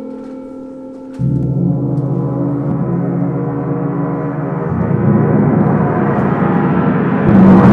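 Large gong: a low ringing tone fades at first, then the gong is struck hard about a second in and keeps swelling as it is played. Its dense metallic roar gets louder in two more steps, with a bright hissing shimmer spreading over it near the end.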